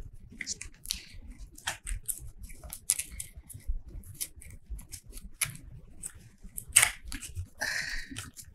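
Scissors snipping paper in short, irregular cuts, mixed with the crackle and rustle of paper being handled; the sharpest snip comes just before 7 s, and a longer rustle follows near the end.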